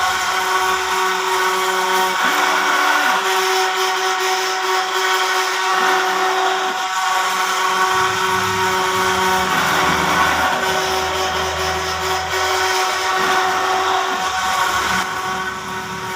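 Small electric motor running with a steady whine made of several tones, which shift in pitch a few times, about two and eight seconds in.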